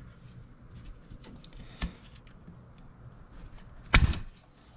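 Hands handling a wiring harness and its plastic connectors: small rustles and light clicks, a sharper click just under two seconds in, then one loud sharp knock about four seconds in.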